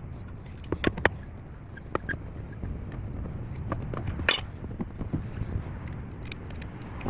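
Scattered metallic clinks and knocks of lug nuts and hand tools being handled while a car wheel is taken off, the loudest about four seconds in, over a low steady rumble.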